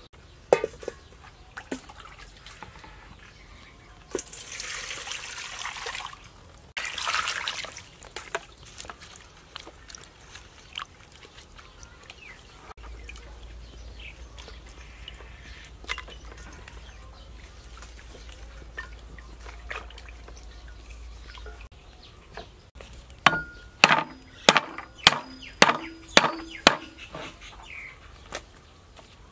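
Food preparation: two short splashes or pours of water, scattered small knocks, then near the end a run of about a dozen sharp knife chops on a cutting board.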